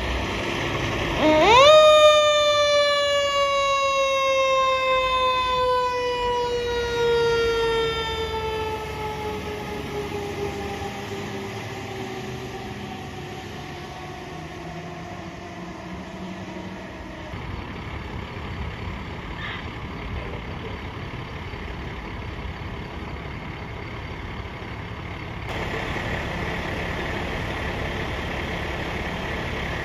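A fire engine's mechanical-style siren spins up sharply about a second in, then winds down in one long, slowly falling wail that fades over the next ten-plus seconds. The truck's engine runs underneath.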